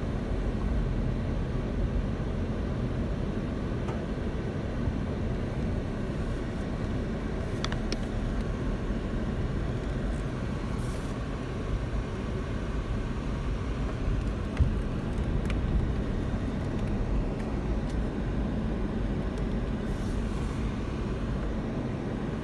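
Car driving slowly on a wet road, heard from inside the cabin: a steady low rumble of engine and tyres, with a few faint ticks and one short thump about two-thirds of the way through.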